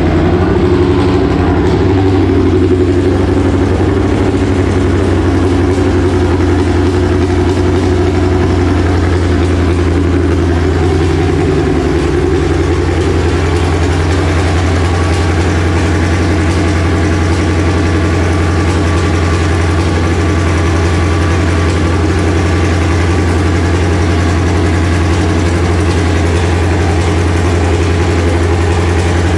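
Car engine idling steadily, with a slight change in its note about eleven seconds in.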